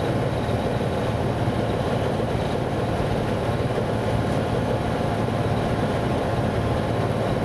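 Ultralight aircraft's propeller engine running steadily while taxiing, heard from inside the cockpit.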